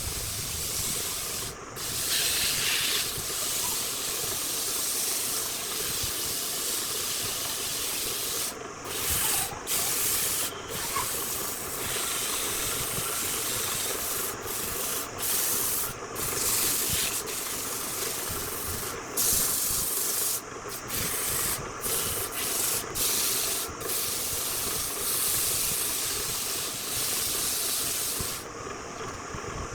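Sandpaper rubbing on wood: a continuous hiss of sanding, broken now and then by short gaps.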